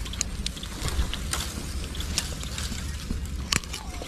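Scattered small clicks and rattles of fishing gear being handled, with one sharper click about three and a half seconds in, over a steady low rumble.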